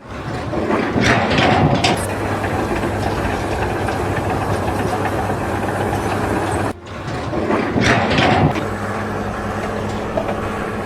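A machine's engine running steadily with a low hum, with louder noisy surges about a second in and again after a brief break about seven seconds in.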